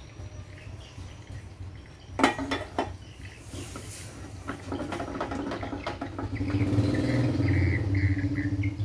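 Metal clanking as a piece of steel stock is set into a chop saw's steel vise, loudest about two seconds in. Then a rattling, clicking scrape as the vise screw is cranked tight, growing louder near the end. The saw is not running.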